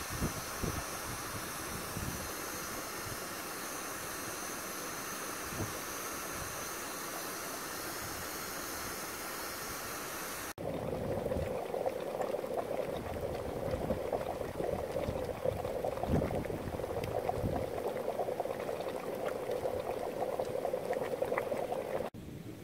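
Geothermal steam vent hissing steadily; about ten seconds in it gives way to a hot mud pool boiling, with a dense, continuous bubbling and popping.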